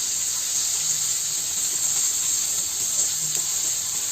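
Steady sizzling hiss of capelin frying in a pan.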